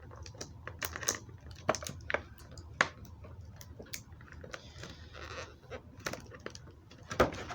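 Hard plastic action-figure parts clicking and clacking at an irregular pace as the figure is handled and its hands are swapped on the wrist pegs. There is a brief rustle about five seconds in and a louder cluster of clicks near the end.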